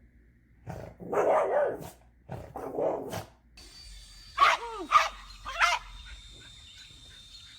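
A dog barking twice, then three short yelps that drop in pitch, over a faint steady high tone.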